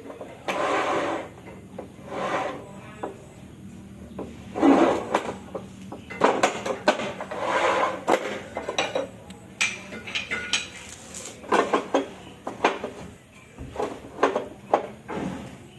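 Tile work: irregular scraping strokes and sharp clacks and knocks of hard ceramic tile and metal tools, some strokes lasting about a second.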